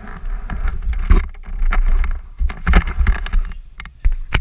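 Rubbing, scraping and knocking of a hand handling the action camera as it is taken off its mount, over an uneven low rumble, with sharper knocks near the end.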